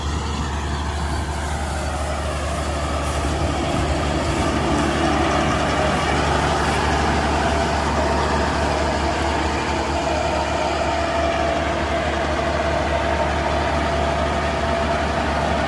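Heavy diesel engines of farm tractors and a combine harvester running hard, a steady low drone with shifting engine tones that grows louder about four seconds in.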